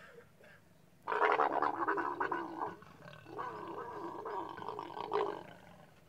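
Leopards growling during mating. Two long, rough, wavering growls: the first begins about a second in, and the second is a little longer and follows after a short pause.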